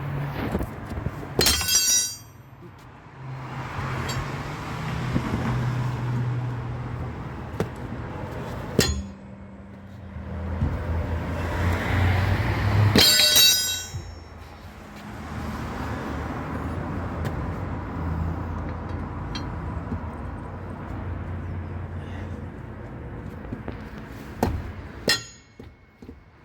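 Steel wheel brace clanging on the van's wheel nuts as they are loosened, with two sharp ringing metal strikes about two seconds in and again about thirteen seconds in, and a few lighter knocks between. A steady hum of passing traffic runs underneath.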